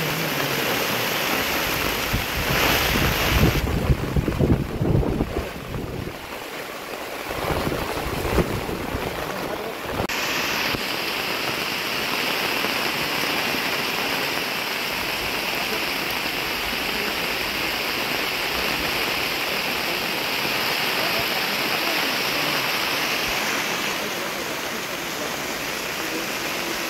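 Heavy monsoon rain falling steadily, with wind buffeting the microphone in the first few seconds; from about ten seconds in it settles into an even, steady hiss.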